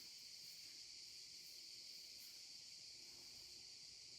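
Near silence with the faint, steady high-pitched chirring of insects.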